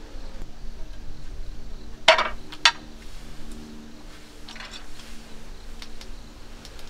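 Two sharp clinks about half a second apart, then a soft rustle, over a faint steady hum.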